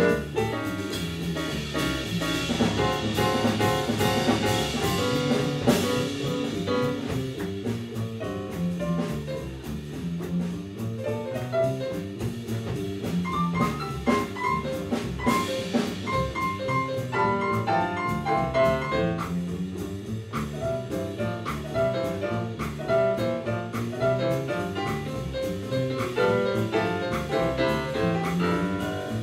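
A jazz big band playing live: saxophone section and trombones over double bass, piano and drum kit, with a steady swing beat.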